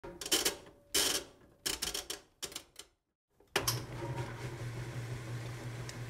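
Quick clusters of sharp mechanical clacks and rattles for about three seconds, then a brief silence, then a steady low hum that starts suddenly.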